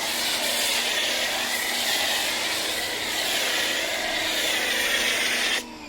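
Foam cannon on an electric pressure washer spraying foam, a steady hiss of spray over a faint hum from the pump motor. It cuts off suddenly near the end as the trigger is released.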